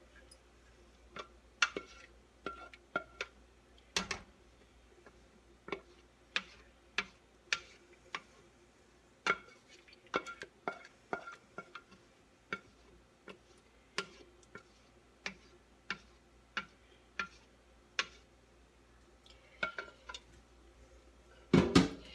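Rubber spatula scraping and knocking against the inside and rim of a metal pot as thick rice pudding is scraped out into a baking pan: irregular taps and clinks about once or twice a second with a light metallic ring, with a few louder knocks near the end.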